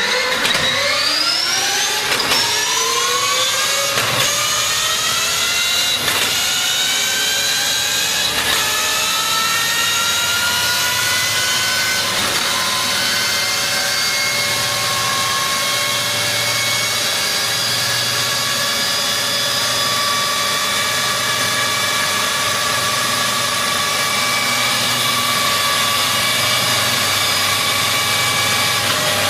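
Brammo Engage electric motorcycle with an IET powertrain driven hard on a roller dyno: a high, multi-tone whine of motor and drivetrain that climbs in pitch in several steps over the first ten seconds or so, then holds steady at speed near top speed.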